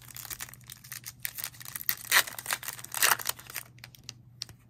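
Foil trading-card pack wrapper being torn open and crinkled by hand. The crackling comes in quick runs, loudest about two and three seconds in, then dies down to a few soft ticks.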